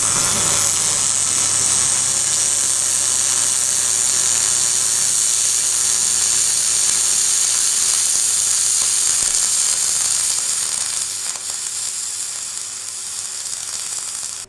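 MIG welding arc on aluminium, running 1.2 mm ER5356 (AlMg5) wire under pure argon at about 200 A and 20 V, laying a fill pass in a ground-out crack repair. It is a steady hiss with a low hum underneath, which softens somewhat in the last few seconds and then stops abruptly.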